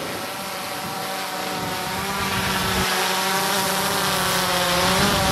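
Drone's propellers whining as it comes in to land, growing steadily louder as it descends closer, the pitch wavering a little near the end.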